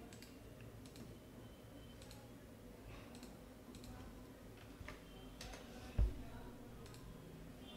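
Faint, scattered clicks of handling at a computer desk, a few seconds apart, over a low room hum, with one louder low thump about six seconds in.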